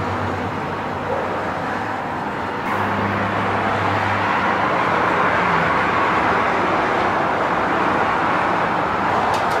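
Steady road traffic from a highway: a continuous rush of passing cars and tyres, with a low engine hum swelling briefly about three seconds in.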